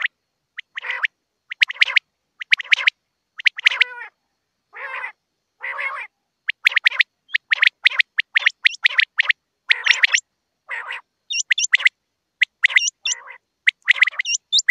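Quail calling: a run of short squawky calls with clean gaps between them, spaced out at first and coming faster and closer together from about halfway, with higher flicking notes near the end.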